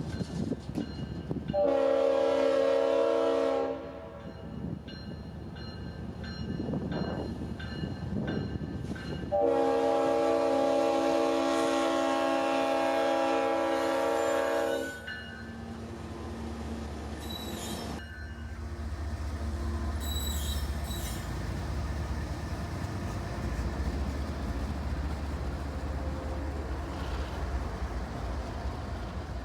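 Freight locomotive air horn sounding two long chord blasts, the second much longer, followed by the low rumble of the two GE Evolution-series diesel locomotives throttling up as the train pulls its cars.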